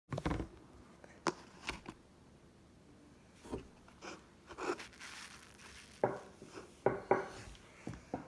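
Slime being handled: about ten irregular sharp sticky clicks and pops, with softer crackling between them.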